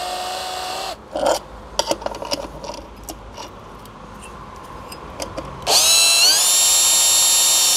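Cordless drill-driver on its lowest torque setting driving screws into a Simson moped engine's clutch cover: a brief spin at the start, a few light handling clicks, then about six seconds in a longer run whose whine rises in pitch and holds steady as the drill's torque slip clutch takes over.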